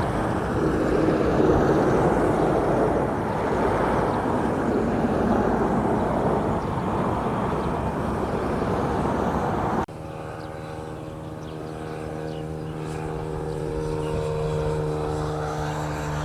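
A motor engine running with a dense rushing noise. About ten seconds in, the sound cuts abruptly to a steady, evenly pitched engine hum that grows louder toward the end.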